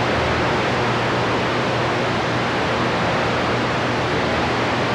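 CB radio receiver hissing with open-channel static between transmissions, steady, with a faint low hum underneath.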